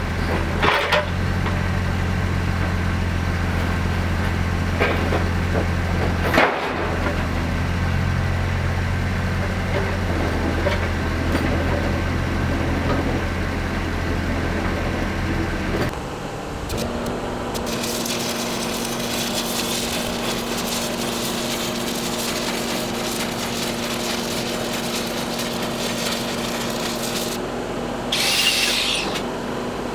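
An engine running steadily, with a few sharp knocks, for about the first half. It then switches abruptly to a different, higher engine note under a dense crackling hiss, with a short high squeal near the end.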